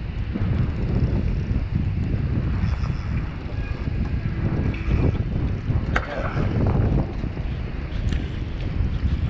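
Wind buffeting the microphone in a heavy, uneven rumble, with a spinning reel being wound in underneath it.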